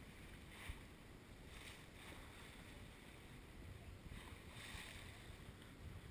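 Water rushing and splashing along the hull of a sailboat under sail, with surges of spray about a second in, near two seconds, and around four to five seconds, over a steady low rumble of wind on the microphone.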